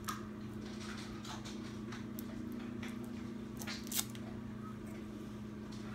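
Faint crinkling and small ticks of the foil wrapper being picked and peeled off a chocolate surprise egg by small fingers, a few ticks sharper around two and four seconds in. A steady low hum runs underneath.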